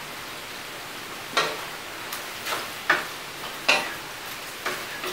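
Wooden spatula scraping and knocking against a stainless steel pan as tofu and ground chicken are stir-fried, in irregular strokes starting about a second and a half in, over a steady sizzle of frying.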